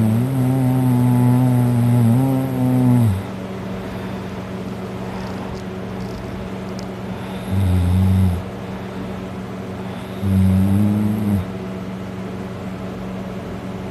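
A heavily drunk person snoring loudly while passed out on their back: three deep, droning snores, the first about three seconds long, then two shorter ones a few seconds apart, over a steady low hum.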